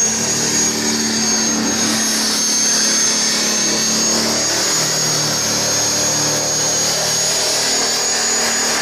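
Handheld rotary tool running at high speed against a VW bus's lower body panel, grinding off Bondo body filler and paint. It makes a steady high-pitched whine over a grinding hiss.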